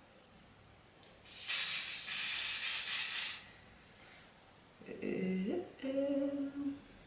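Aerosol wig-holding hair spray hissing in one continuous spray of about two seconds, starting about a second in, with a faint short puff after it. Near the end come short voiced sounds from a person.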